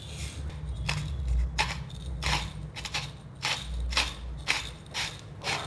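Yinikiz 2-in-1 hand-twisted salt grinder crushing coarse Himalayan rock salt: a run of short gritty crunching rasps, one with each twist, about one to two a second. The salt is going through smoothly without jamming.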